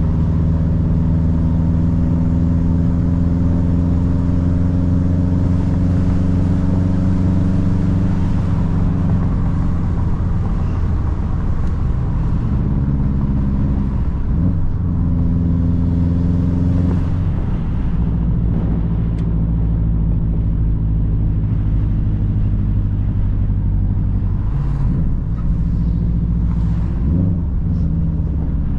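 A modified car's engine running steadily under load, heard from inside the cabin. The engine note drifts slowly in pitch and dips briefly a few times.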